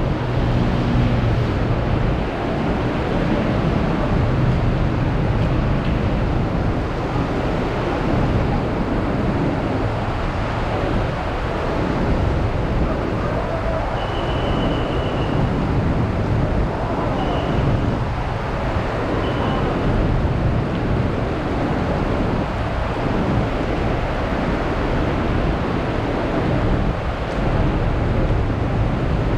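Heavy rain falling as a steady, even rush of noise with a deep low rumble underneath. A few short high-pitched tones sound about halfway through.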